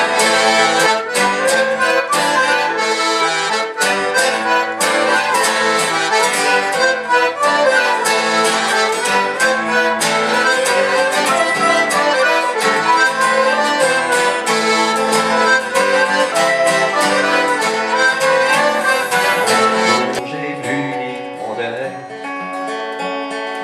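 Traditional Breton fest-noz dance tune played on accordion and fiddle over strummed acoustic guitar. About 20 seconds in the tune ends and the acoustic guitar goes on strumming alone, more quietly.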